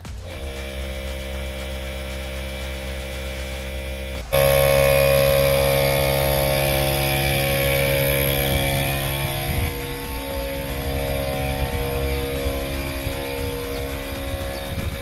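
Jeep Gladiator's engine starting at the push of the start button and idling. About four seconds in, an ARB CKMA12 12-volt on-board air compressor switches on and runs loudly and steadily, a hum with a high whine over the engine, pumping air down a hose.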